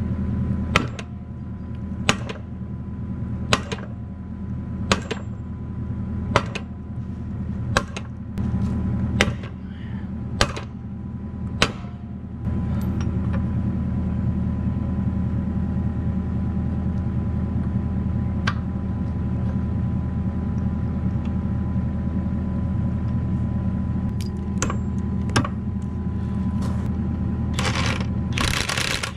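Kubota KX121-3 excavator's diesel engine idling steadily while a new bucket pin is driven into its bore with hammer taps, about one every second and a half, roughly ten in the first twelve seconds and a few more later. Near the end, a cordless impact wrench hammers in short bursts as it runs down the pin's end bolt.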